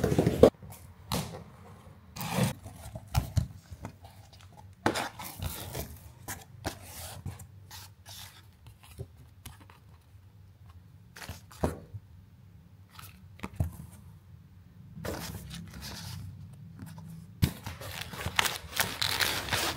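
A cardboard shipping box being opened by hand: packing tape torn, cardboard flaps and paper leaflets handled in scattered rustles and taps. Near the end there is a denser crinkling of plastic air-cushion packing.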